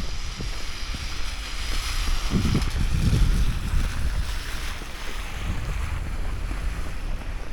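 Wind gusting against the microphone: a low buffeting with a broad rushing hiss that swells about two to four seconds in.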